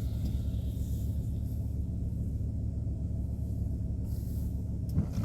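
Volkswagen T4 van running, heard inside the cabin as a steady low rumble of engine and road noise. A single sharp click about five seconds in.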